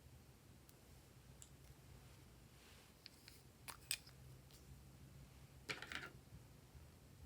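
Glossy slime being handled, giving a few soft clicks and pops: two sharp clicks close together midway, then a short crackling cluster about six seconds in, over a low hum.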